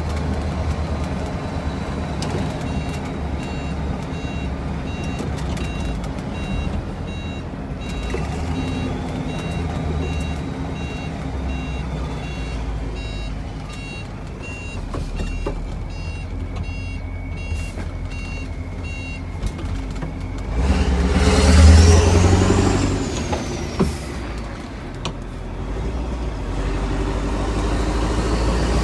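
Mack E9 V8 diesel truck engine idling, then revved hard once about two-thirds through, with the turbo whistle rising and falling away. The turbo whistle starts rising again near the end. Through the first two-thirds a reversing beeper beeps at an even pace.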